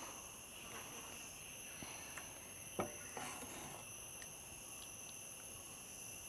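Steady high-pitched chorus of crickets, with a few faint clinks and scrapes of a steel ladle in a pan; the clearest clink comes a little under three seconds in.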